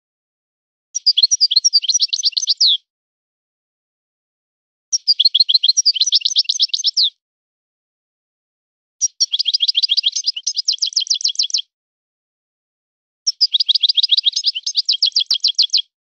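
European goldfinch song: four phrases of quick, high twittering notes, each about two seconds long, coming at even intervals about four seconds apart with silence between.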